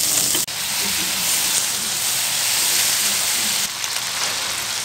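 Pork pieces frying in a hot non-stick pan: a steady, loud sizzle that cuts out for an instant about half a second in.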